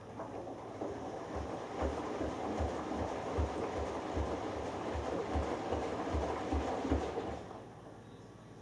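Hoover Dynamic Next front-loading washing machine drum turning during the delicates wash: clothes and water sloshing over a low rhythmic throb, about two to three pulses a second. It runs for about seven seconds and then stops as the drum pauses.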